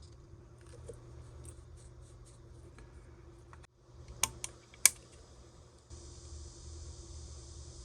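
Three sharp little clicks of plastic model-kit parts and hobby tools being worked, such as parts being snipped from the sprue, the last one loudest, over a steady low room hum with faint small ticks.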